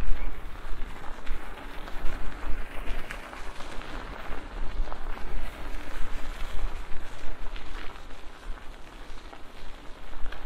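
Bicycle tyres rolling along the path, a steady grainy rolling noise with scattered small ticks, under gusting wind rumbling on the microphone.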